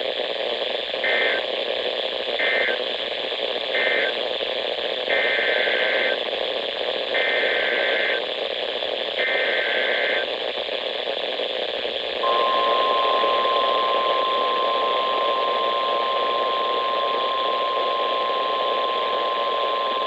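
NOAA Weather Radio Emergency Alert System tones over static hiss. First come three short bursts of warbling SAME data, the end-of-message code closing the previous alert. Then three longer bursts of the same data, the header of the next alert. About twelve seconds in, the steady 1050 Hz warning alarm tone begins.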